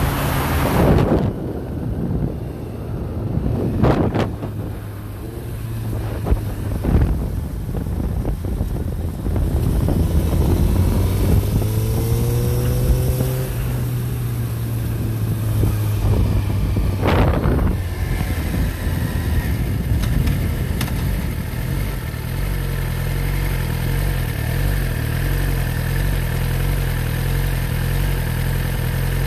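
Sport motorcycle engine running under way with wind rush and a few brief whooshes, pitch rising as it pulls away about halfway through. In the last third it settles into a steady idle while the bike sits stopped.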